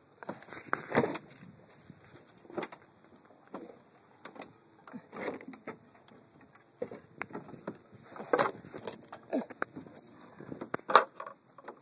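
Irregular knocks, clanks and rustling as people move about and handle gear aboard a small sailboat, with the loudest knocks about a second in and near the end.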